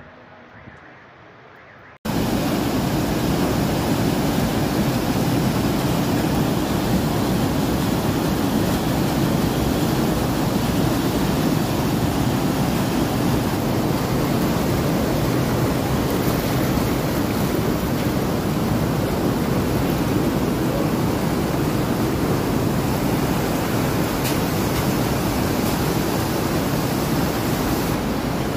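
Loud, steady rush of fast-flowing floodwater, starting abruptly about two seconds in.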